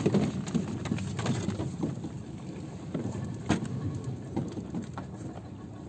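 Water sloshing around a small boat moored against a wind-turbine foundation, with a few sharp knocks from the wooden boat hook and mooring rope being handled, the clearest about three and a half seconds in.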